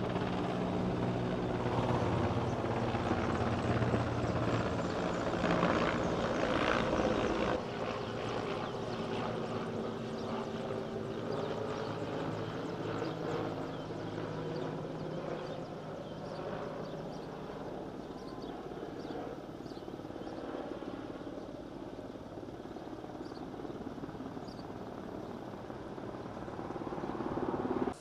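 Firefighting helicopter with an underslung water bucket flying over, its rotor and engine making a steady drone. The sound is louder for the first seven seconds or so, then drops a little and holds steady.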